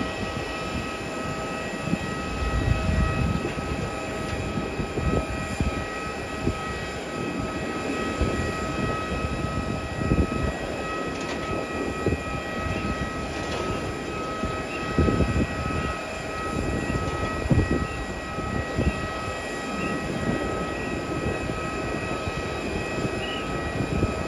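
Steady whine of several held tones from a parked jet airliner, the sound of its auxiliary power unit running at the gate, under irregular low gusts of wind buffeting the microphone.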